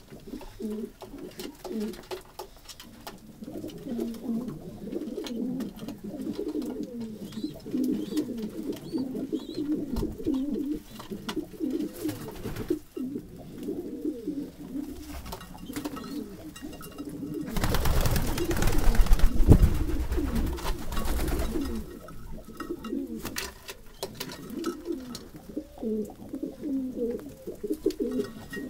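Domestic pigeons cooing, many at once, a continuous low warbling chorus. About two-thirds of the way through, a louder rush of noise lasts about four seconds over the cooing.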